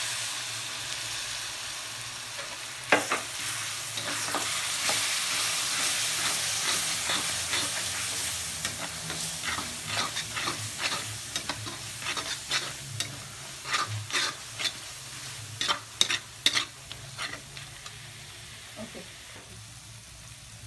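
Tamarind water poured into a hot kadai of frying onion-tomato masala and spice powders makes a loud sizzle that fades slowly. A metal spatula stirs the masala, scraping and clinking against the pan many times in the second half.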